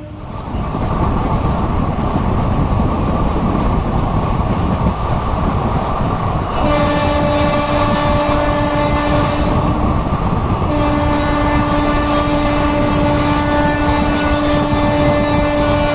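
Indian Railways train running fast with a loud rumble of wheels on rails, while the locomotive horn sounds one steady note: a blast of about three seconds starting some six seconds in, then after a short break a second, longer blast from about eleven seconds in.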